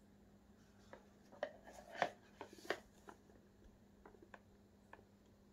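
Cardboard product box handled and turned over in gloved hands: a short run of soft taps, rubs and scrapes, the loudest about two seconds in, then a few lighter ticks.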